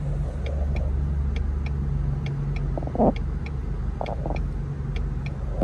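Car engine and road rumble heard from inside the cabin, steady and low, with a light ticking repeating about three times a second. A short thump about three seconds in.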